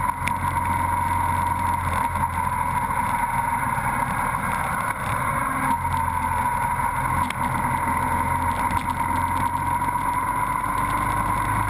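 Motorcycle engine running steadily at road speed, a constant drone with no change in pace.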